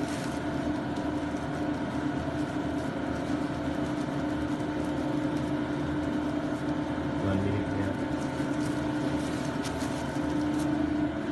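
Steady machine hum with one strong constant low tone and fainter steady tones above it, from a motor or appliance running in the room. A few faint clicks come through now and then.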